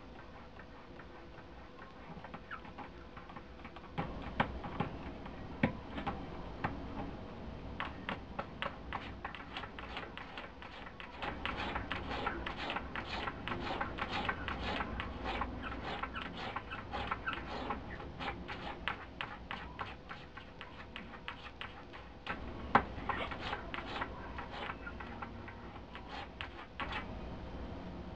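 A cat's claws scratching and tapping at a cardboard box and a shelf while it digs: a rapid, irregular run of clicks and scratches, several a second, coming in spurts, with a few sharper knocks.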